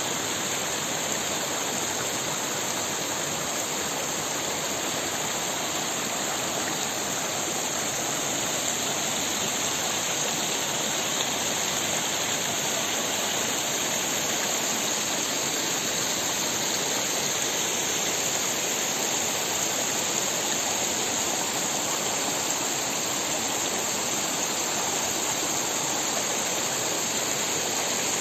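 Shallow mountain stream running over rocks in small cascades: a steady, even splashing rush of water.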